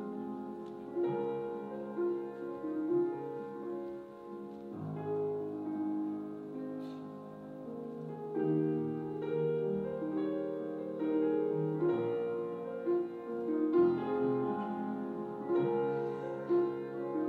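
Classical piano music: notes held over chords, changing every second or so.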